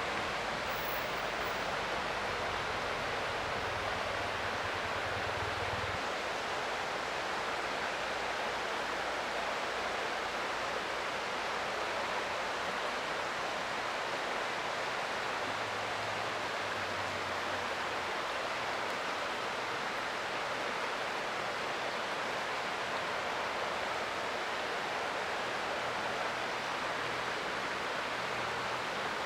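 Creek water flowing: a steady, even rush of running water.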